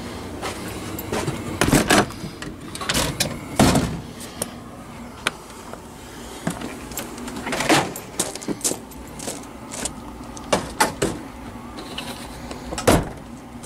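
A camper door being opened and shut, then irregular knocks, clicks and rustling as someone walks out carrying gear. The loudest knocks come about 2, 3.5, 7.5 and 13 seconds in.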